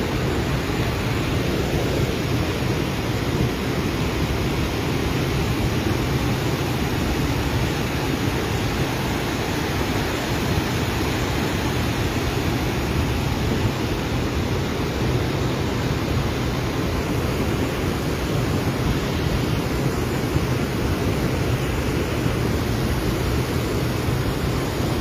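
Muddy flash-flood torrent rushing down a boulder-strewn mountain riverbed: a loud, steady rush of fast water, deepest in the low end, without a break.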